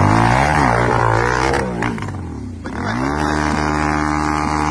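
Dirt bike engine revving unevenly, with a short noisy splash or clatter about a second and a half in as the bike goes into the water. The revs drop off briefly, then rise and hold steady at high revs while the bike lies on its side in the stream.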